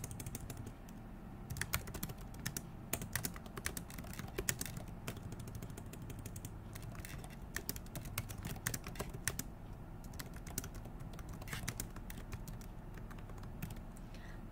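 Computer keyboard being typed on: quick, irregular clicks of keystrokes in short runs, over a low steady hum.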